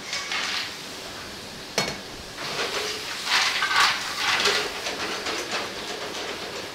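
Mussels in their shells tipped into a hot frying pan of white-wine sauce: hissing and sizzling as they hit the liquid, with shells clattering as the pan is shaken over a gas flame. A sharp knock about two seconds in; the sizzle grows loudest around the middle.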